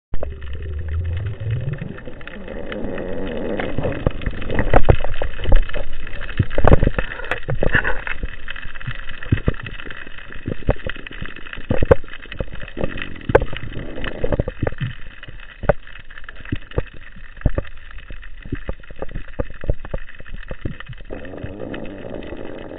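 Underwater sound picked up through an underwater camera's housing: irregular sharp clicks and knocks, densest and loudest about four to eight seconds in, over a steady background. A low sound rises in pitch over the first two seconds.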